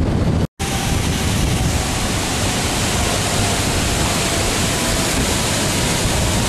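Loud, steady rush of swollen floodwater churning past. It starts after a split-second dropout about half a second in.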